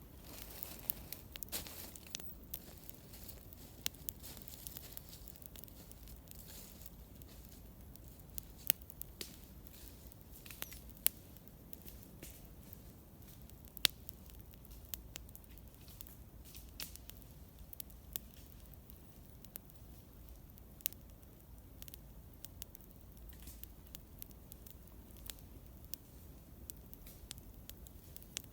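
Wood campfire crackling: irregular sharp snaps and pops over a faint steady hiss, with a few louder pops now and then.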